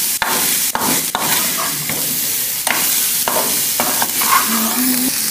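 Diced calabresa sausage with green pepper and onion sizzling in an aluminium frying pan while a metal spoon stirs it, with a steady hiss and several sharp scrapes and knocks of the spoon against the pan.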